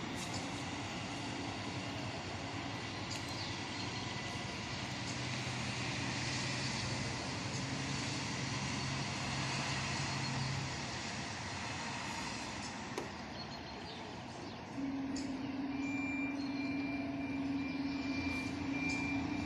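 Scania fire engine's diesel engine running at low speed as the truck pulls in and maneuvers. About fifteen seconds in, a steadier, higher engine hum sets in with a jump in loudness.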